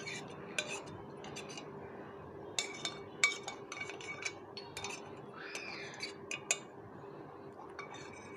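A metal spoon clinking and scraping against a stainless steel pan as milk pudding is scraped out into a bowl: a series of light, irregular clinks.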